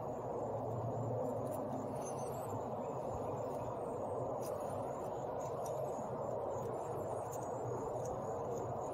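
Steady low background hum with a faint high insect-like buzz. A few faint light clicks come from the plastic paintbrush handle poking debris out of the cut end of a power steering hose fitting.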